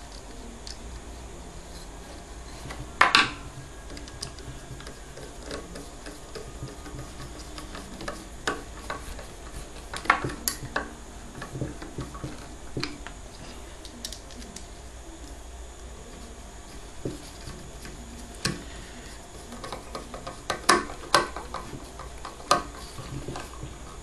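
Scattered clicks and knocks of a plastic carbon-brush holder being handled and pushed into place on a washing-machine motor. The loudest knocks come about three seconds in, around ten seconds, and in a cluster near the end.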